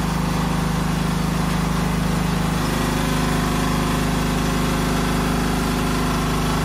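An engine running steadily at idle, an even hum whose tone shifts slightly about two and a half seconds in.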